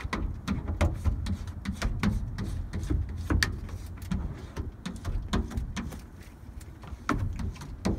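A hand squeegee worked over wet window film on a truck cab's back window: a string of short, irregular scrapes and clicks over a low rumble.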